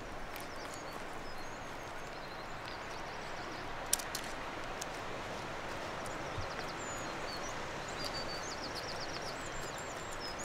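Woodland ambience: a steady hiss with small birds chirping and giving quick high trills in the background, and one sharp click about four seconds in.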